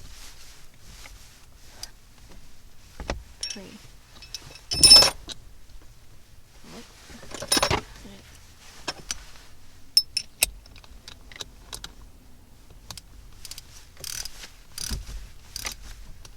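Socket wrench and small metal parts clinking and clicking irregularly as the 12 mm bolt on a car's gear shifter is undone, with two louder metallic clatters about five and seven and a half seconds in.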